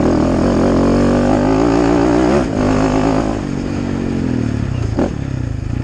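KTM 450 Rally's single-cylinder four-stroke engine pulling hard under acceleration. The revs climb for about two and a half seconds, break at a gear change, pull again briefly, then fall away as the throttle closes. There is a short knock about five seconds in.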